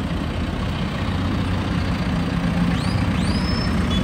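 Farm tractors passing slowly and close by, a steady low engine rumble that swells briefly as one goes past. Two short rising whistle-like tones sound about three seconds in.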